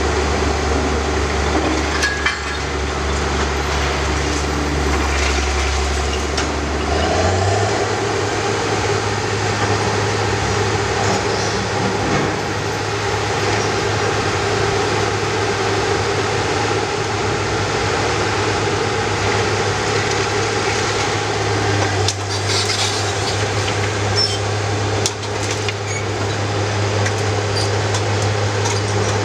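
Diesel engines of heavy demolition machinery running steadily, with a low hum whose pitch steps up about seven seconds in and then holds. A few brief knocks and clatter sound over it.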